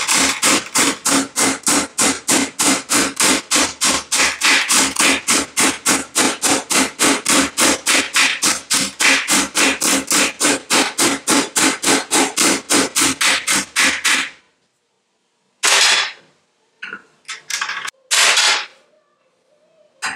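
Stand-mounted hammering tool striking an aluminium sheet in rapid, even blows, about four a second, stopping about fourteen seconds in. A few separate metallic clatters follow.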